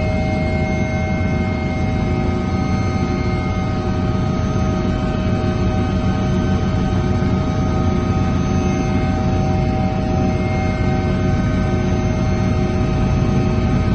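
Steady drone of a helicopter in flight, heard from inside the cabin, with a constant high turbine whine of several steady tones over it.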